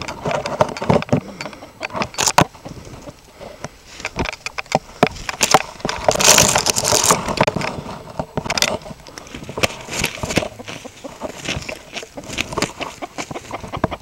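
Handling noise and rustling of branches: a scattered run of clicks and knocks, with a longer rustle of leaves and twigs about six seconds in.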